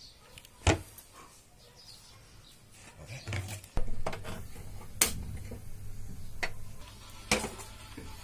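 Scattered sharp knocks and clatters from kitchen work: a knife against a plastic cutting board and an aluminium pressure cooker being handled. There are about five separate knocks, with a low rustle between them.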